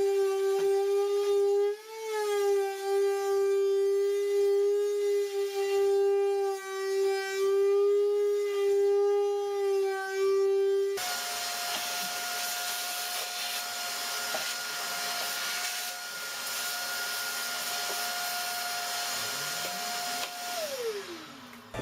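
Electric sander running steadily on wood with a strong whine. About halfway through the pitch jumps higher with more hiss, and near the end the motor is switched off and winds down with a falling pitch.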